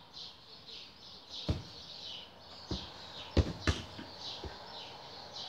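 A small bird chirping over and over in a high, even rhythm, with five sharp thumps scattered through it, the loudest two close together about three and a half seconds in.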